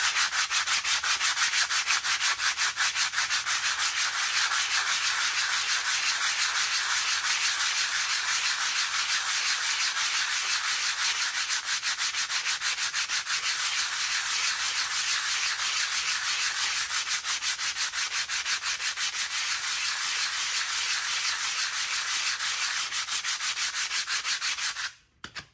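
A disc brake pad rubbed by hand face-down on sandpaper in rapid back-and-forth strokes, a steady rhythmic scratching, sanding a little off the pad's friction surface so the stock caliper will clear the thicker rotor. The strokes stop abruptly just before the end.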